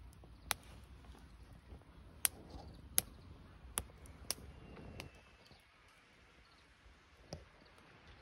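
Split firewood burning in a folding fire stand, giving sharp pops and snaps: six spaced over the first five seconds, then one more near the end.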